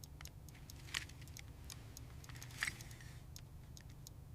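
Faint ticking clicks, unevenly spaced, over a low steady hum.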